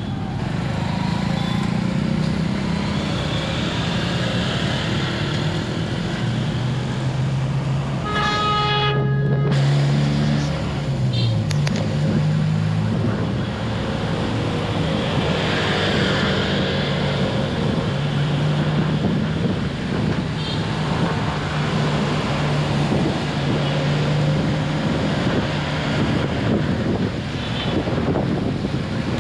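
Steady city traffic heard from a moving car, with a vehicle engine's low hum under it. A car horn sounds once, held for about a second and a half, about eight seconds in.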